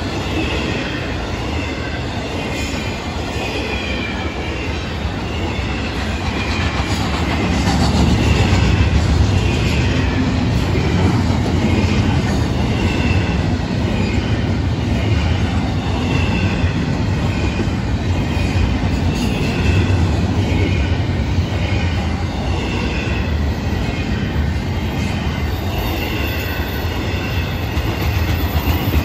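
Freight train's intermodal cars rolling past close by: a steady rumble of steel wheels on the rails with a wavering high squeal from the wheels, growing louder about eight seconds in.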